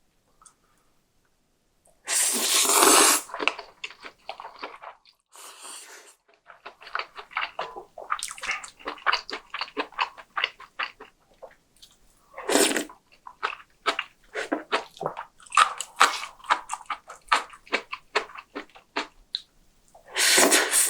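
A person eating close to the microphone: loud slurps about two seconds in, again around twelve seconds and near the end, with rapid wet chewing and crunching in between.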